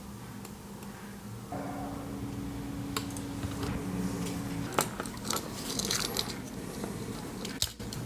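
Small metal clicks and light jingling from a Swiss Army knife's metal lanyard ring knocking against the knife as it is handled. This is the rattle that makes the ring noisy.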